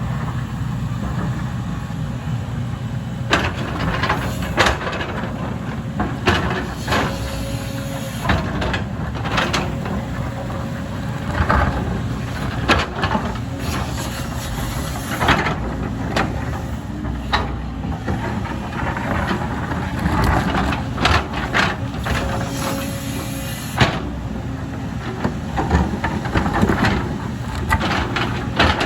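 Heavy earthmoving machine's diesel engine running steadily, with frequent irregular knocks and clanks from the working machine.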